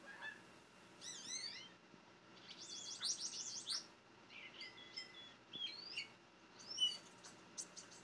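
European starlings singing: a string of varied wavering whistles and quick high chirps in short phrases, one after another.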